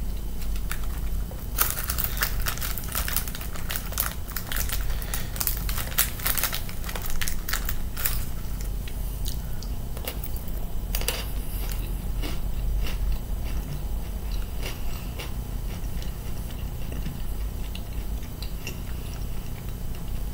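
Chewing and crunching of crisp matcha Pocky biscuit sticks close to the microphone. A dense run of sharp crunches comes about a second and a half in, then thins to scattered crunches.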